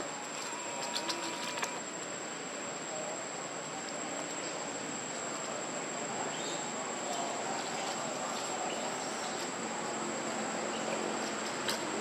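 Steady insect chorus: one even, high-pitched drone held without a break over a background hiss, with a few light clicks about a second in.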